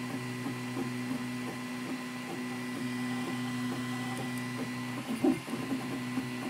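Prusa i3 MK2S 3D printer running a print: its stepper motors sing in short tones that change pitch several times a second as the print head moves back and forth, over a steady hum. A brief louder bump comes about five seconds in.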